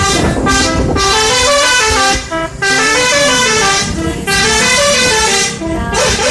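Indonesian bus 'telolet' horn, a set of multi-tone horns, playing a quick melody of short stepped notes in phrases with brief breaks between them.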